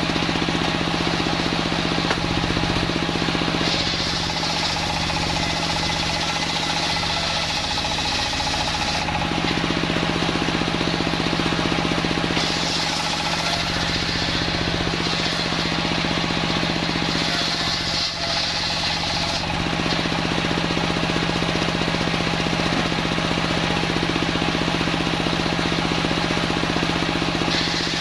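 Homemade engine-driven circular sawmill running steadily with a constant engine drone. A higher, harsher sawing sound from the blade cutting wood comes in a few seconds in for about five seconds, and again near the middle for about seven seconds.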